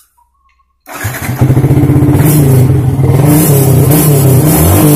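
Yamaha Vixion NVL's single-cylinder 150 cc engine started on the electric starter: it catches about a second in, then idles steadily.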